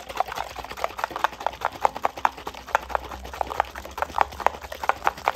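A bottle of water shaken hard, with a small plastic Disney Doorables figure knocking against its walls over the sloshing water, about five knocks a second. The shaking dissolves the figure's colour-reveal coating.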